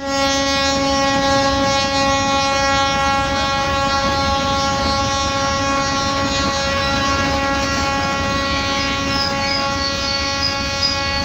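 Train horn held in one long steady blast over the rumble of a passing train, cutting off near the end.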